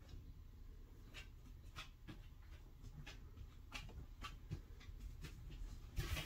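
Faint, irregular light clicks and ticks, roughly one or two a second, over a quiet room hush, with a louder knock right at the end.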